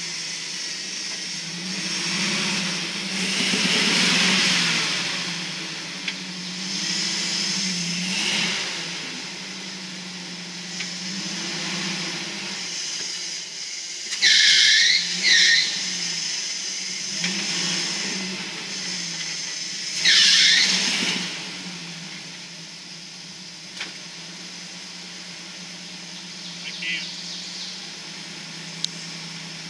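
A four-wheel-drive truck's engine rising and falling as it is worked on a rocky climb. Two loud, high-pitched squeals come about a third and two-thirds of the way in. The engine then settles to a low idle.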